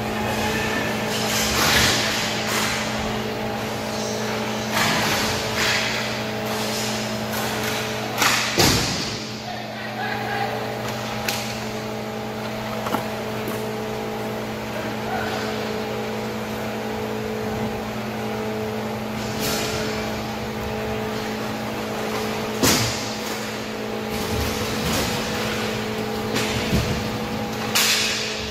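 Inline hockey play heard from behind the glass: sharp clacks and thuds of sticks, puck and players against the boards and glass, about ten scattered hits, the loudest a pair about a third of the way in. A steady hum runs underneath.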